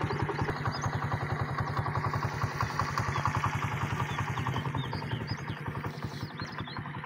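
An engine idling with a steady, rapid throb that slowly fades over the last couple of seconds, while a few small birds chirp.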